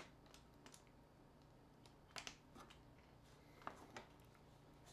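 Faint clicks and scrapes of small tools and parts as a smartphone is taken apart by hand: a sharp click at the start, a short scraping cluster a little over two seconds in, and two more clicks near the end.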